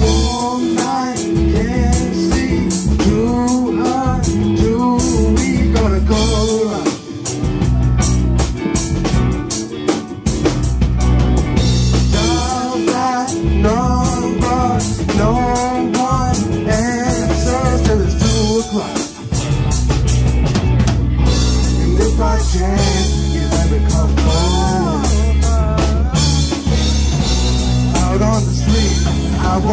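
Live band playing a song: drum kit, electric guitar and bass guitar, with a melody line over them. The music drops out briefly a few times before picking up again.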